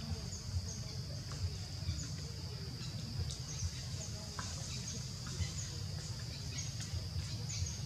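Outdoor forest ambience: a steady high insect drone with short high chirps repeating every second or so, over a low rumble.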